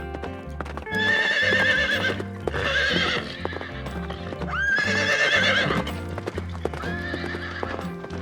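A horse whinnying several times, each call high and quavering, over background music with a steady beat.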